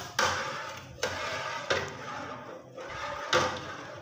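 A white ladle stirring a milky sago drink in an enamel pot, the liquid sloshing and swishing in about four strokes.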